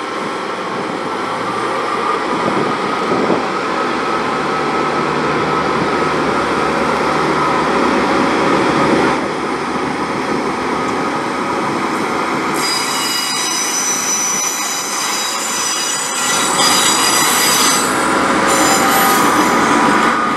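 GWR diesel multiple-unit passenger train running slowly past, growing louder as it approaches. About twelve seconds in, a high-pitched wheel flange squeal sets in from the wheels on the curved station track and carries on as the coaches pass.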